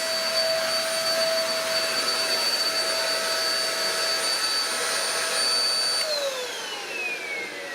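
Shark bagless stick vacuum (EP600) running steadily with a high motor whine, then switched off about six seconds in, its motor winding down in a falling whine.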